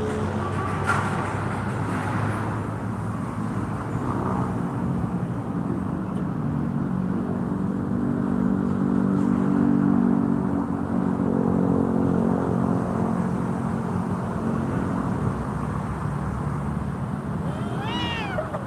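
A motor vehicle engine drones steadily, growing louder toward the middle and then easing off. Near the end a cat gives a short yowl that rises and falls in pitch.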